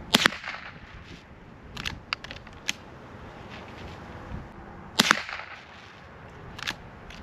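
Henry Golden Boy lever-action .22 LR rifle firing Federal Lightning rounds: two sharp shots about five seconds apart, one just after the start and one about five seconds in. Several lighter clicks fall between the shots, as from the lever being cycled to chamber the next round.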